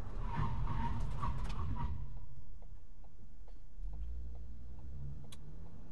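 Car driving, with a steady low road and engine rumble heard from inside the cabin. A run of short high chirps sounds over it in the first two seconds, and a few faint clicks come later.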